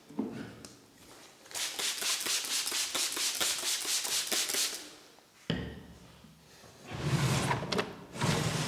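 Hands striking a head and shoulders in percussive massage: a fast run of slaps, about eight a second for some three seconds, then a single thud, and a second, heavier burst of slaps near the end.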